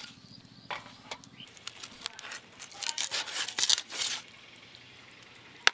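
Rohu fish being cut on a bonti blade: irregular wet slicing and scraping strokes, thickest about three to four seconds in, with a sharp click near the end.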